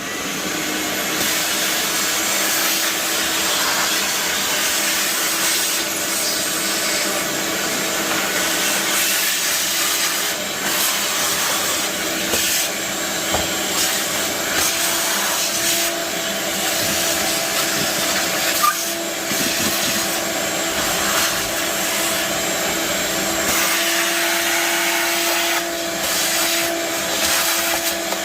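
Ridgid 4-gallon, 5-horsepower wet/dry shop vacuum running steadily with a constant hum. It is sucking up drilled MDF leftovers, and scattered clicks and rattles come through over the motor noise.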